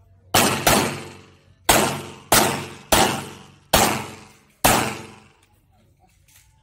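Seven 9mm pistol shots from a Glock 17: a quick pair, then five more spaced about half a second to a second apart, each trailing a short echo.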